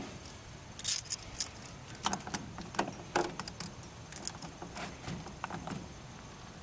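Metal saw chain clinking and rattling as it is handled and worked into the groove around a chainsaw guide bar: a scattered run of small sharp metallic clicks.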